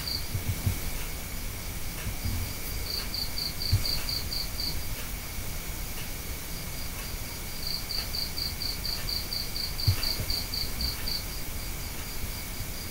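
An insect chirping high and in even pulses, about five or six a second, in runs of a few seconds, over a fainter steady high whine. A couple of soft low thumps come in about a third of the way in and again about three quarters of the way through.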